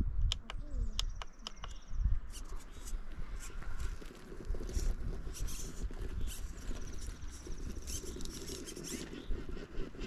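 FTX Ravine RC rock crawler climbing a rock face: its electric drive whines faintly in two stretches, over clicks and crackles of tyres and stones on the rock. Wind rumbles on the microphone throughout.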